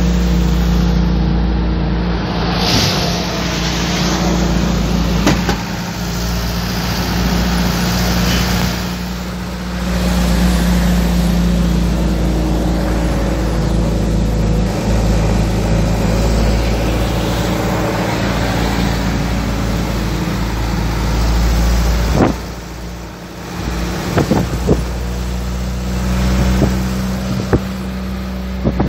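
Engine and road noise inside a vehicle moving at highway speed: a steady low drone over the rush of tyres. The sound drops briefly about two-thirds of the way through, and a few short knocks follow near the end.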